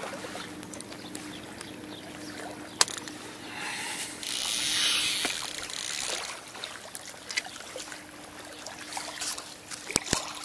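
Water splashing as a hooked crucian carp is brought to the landing net, loudest for a couple of seconds in the middle. A faint steady hum runs underneath, with a few sharp clicks.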